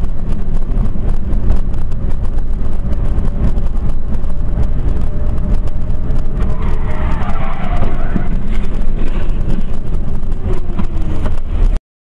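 Loud, rumbling road and wind noise of a moving car picked up by a dash camera's microphone. About halfway through, higher wavering tones and a tone sliding downward come in over the rumble. The sound cuts off abruptly near the end.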